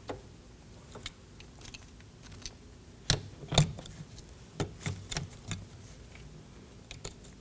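Plastic trim retainer clips on a car door panel being handled and pressed into place, giving scattered sharp clicks and snaps: two louder snaps about three seconds in, then a quick run of lighter clicks a second or so later.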